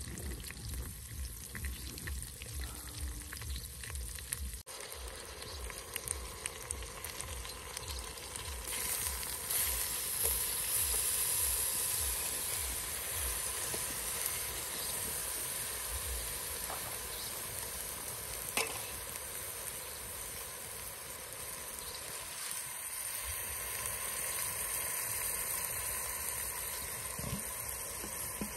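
Onions and masala frying in oil in a steel pot over a wood fire: a steady sizzle, louder for a few seconds in the middle, with a spoon stirring now and then.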